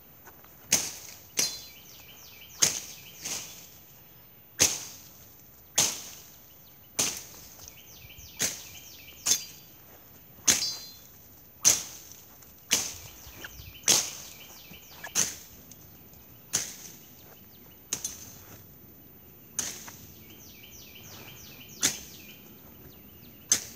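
18-inch Ozark Trail machete chopping through brush and wild rose stems: about twenty sharp whacks, roughly one a second.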